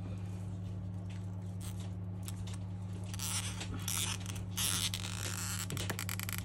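Metal tweezers scraping and picking inside an opened iPhone around its battery, with a run of short scratchy scrapes and small clicks from about halfway through, over a steady low hum.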